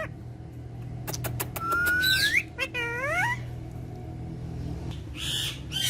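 A pet parrot whistling. A few sharp clicks come first, then one long rising whistle, then several short rising calls. A brief hissing noise comes near the end.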